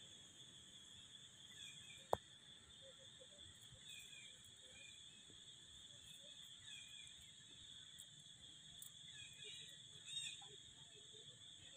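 Near silence: faint outdoor ambience with a steady high hum, scattered faint short chirps, and a single click about two seconds in.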